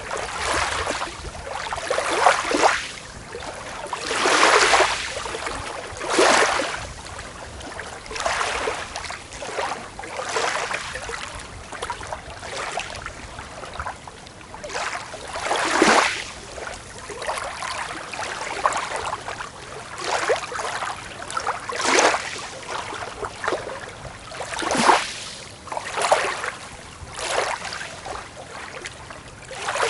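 Small waves breaking and washing onto a beach, one after another every couple of seconds, some splashes louder than others.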